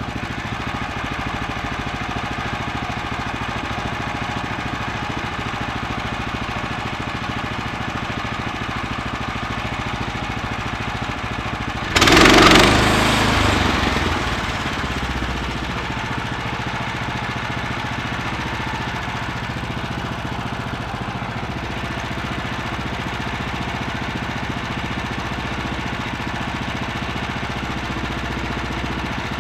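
Small gasoline engine of a Woodland Mills HM126 band sawmill idling steadily. About twelve seconds in, a sudden louder rush of sound starts and fades back to the idle over about three seconds.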